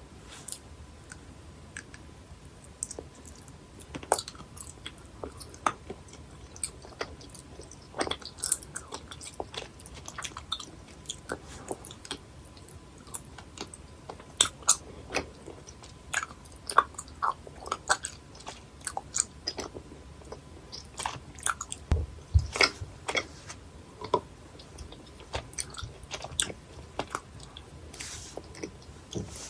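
Close-miked biting and chewing of chewy gummy jelly candies, with irregular sharp clicks and occasional crunchy snaps.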